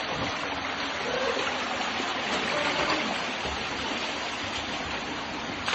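Steady rush of a stream flowing through a cave, with faint voices under it.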